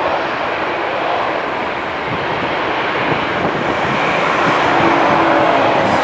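An airliner's engines running loud nearby, a steady rush of noise with faint tones and a thin high whine drifting through it.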